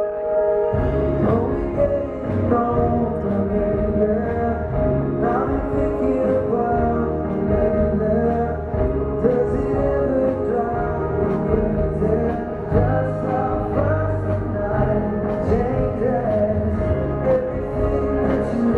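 Live pop band playing a slow ballad with singing. The bass and drums come in about a second in, under a sustained keyboard.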